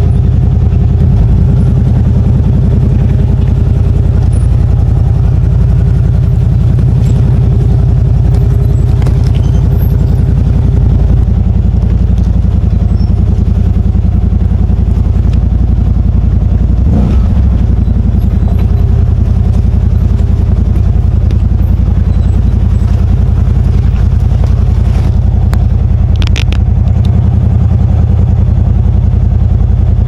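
CFMOTO ZFORCE 950 HO side-by-side's V-twin engine running steadily at low speed, with a steady whine over it for the first third and a single knock about halfway through.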